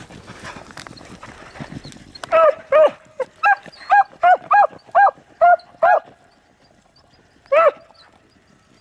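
Beagle barking: about ten short, arched barks in quick succession starting a couple of seconds in, then one more bark near the end. Wind noise on the microphone before the barking.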